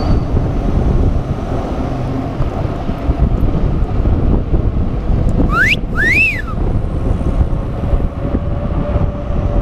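Wind buffeting the microphone of a camera on a moving bicycle. About halfway through comes a two-part whistle: a quick rising note, then one that rises and falls.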